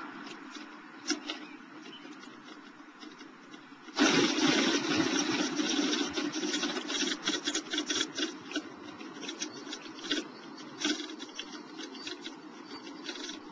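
Front steel doors of a building rattling and clunking in their door strikes as an earthquake shakes it. The noise starts suddenly about four seconds in as a rumbling din full of repeated kachunk knocks, which thin out over the last few seconds.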